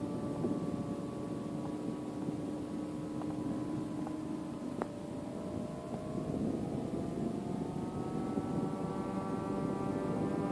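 Radio-controlled model Spitfire and Hurricane flying a low pass, with a steady pitched motor drone. The pitch sinks slightly about halfway through, then rises again near the end as the models come round.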